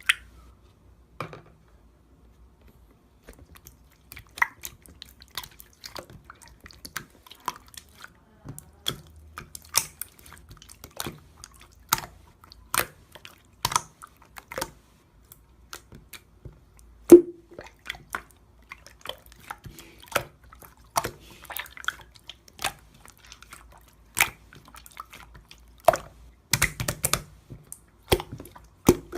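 Irregular sharp, wet-sounding clicks and small snaps, a few a second, one much louder about halfway through and a quick cluster near the end.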